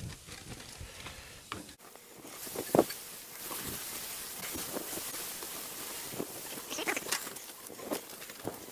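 Pork ribs sizzling on a gas grill: a steady hiss builds from about two seconds in, with short knocks and clatter as the ribs are handled and dipped in marinade. The loudest knock comes a little under three seconds in.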